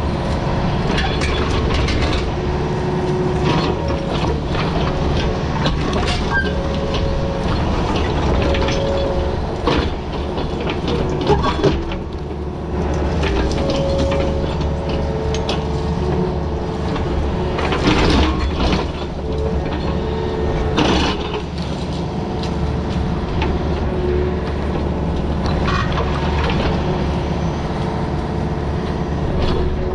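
Excavator's diesel engine running steadily under load, with a hydraulic whine that comes and goes as the controls are worked. Clanks and scrapes of the bucket in rocky dirt, loudest about twelve and eighteen seconds in.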